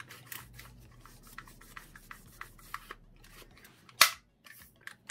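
Handling of an Umarex Glock 19X airsoft pistol being wiped down and reassembled: faint small clicks and rubbing, then one sharp, loud click about four seconds in.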